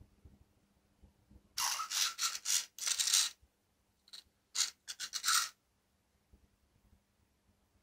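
Scratchy rubbing and scraping on carpet as a cat wrestles an egg-shaped Shru robotic cat toy. A run of rough scrapes comes about a second and a half in and lasts nearly two seconds, then a few shorter ones follow.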